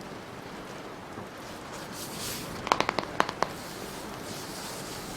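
Steady patter of rain, with a soft swish about two seconds in, then a quick run of about six sharp clicks a little past the middle.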